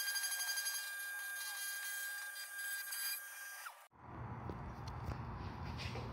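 Router motor whining at high speed, a steady high-pitched whine, as it mills a pocket in an aluminium part on an XY table. The whine cuts off abruptly a little under four seconds in and gives way to a quieter low hum with a few faint clicks.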